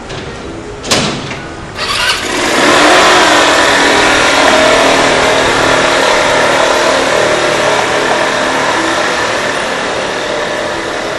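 A sharp knock about a second in, then a small motorcycle engine starts and revs, running loudly as the bike pulls away along the street and fading slowly as it goes.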